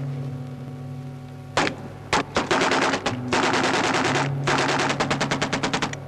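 Two single gunshots, then several bursts of rapid automatic gunfire at about ten shots a second. Held low notes of film score music sound beneath.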